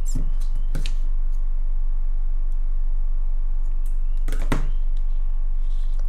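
Scissors snipping black stretch elastic beading cord: a few short sharp clicks, the strongest about four and a half seconds in, over a steady low hum.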